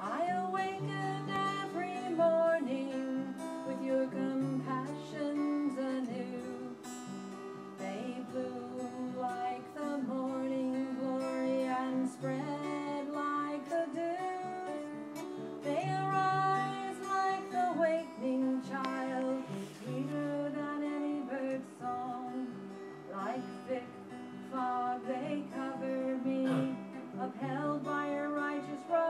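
Acoustic guitar being played, chords and notes changing every second or two.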